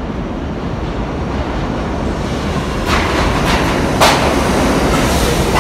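R68 subway train approaching and pulling into an underground station, its rumble growing steadily louder. From about three seconds in there are several sharp clacks of the wheels over the rail joints, the loudest about four seconds in.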